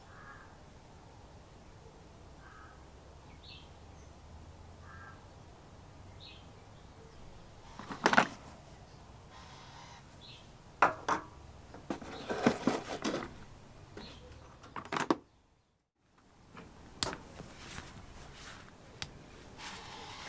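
Faint short bird calls over a low background for the first several seconds, then sharp clicks and knocks as a 1972 Wolf Sapphire 74 electric drill is handled in and out of its moulded plastic carry case. The sound cuts out for about half a second, then a screwdriver works at the drill's housing screws with a few light clicks.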